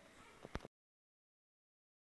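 Near silence: faint room tone with one small click about half a second in, then the sound cuts off to complete silence.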